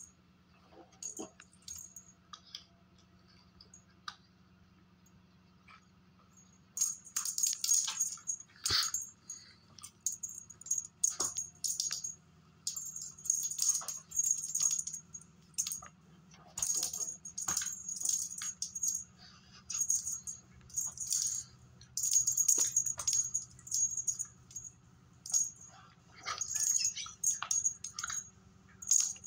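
Feathered cat wand toy rattling and jingling as it is shaken and waved, in quick irregular bursts that begin about a quarter of the way in and keep coming, with only a few faint clicks before.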